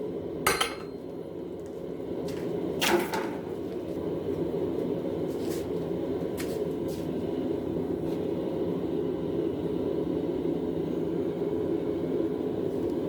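A few sharp clanks of metal on metal in the first few seconds. Then a steady rushing noise, typical of a forge burner or blower, swells up and holds.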